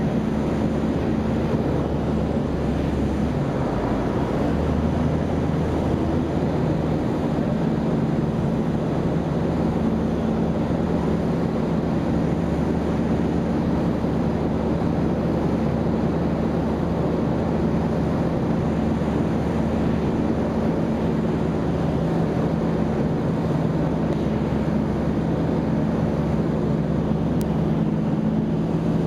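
Rotax 912 UL 80 hp flat-four engine and propeller of a Fascination ultralight running steadily at cruise power, about 5000 rpm, heard from inside the cockpit with wind noise.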